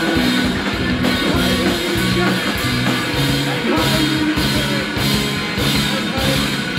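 Rock band playing live: electric guitars and bass over a drum kit with steady cymbal hits, working through a repeating riff.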